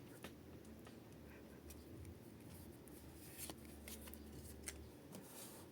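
Faint handling of Pokémon trading cards and their packaging: scattered soft rustles and light clicks, a few a second at most, with one sharper tick about two-thirds of the way in.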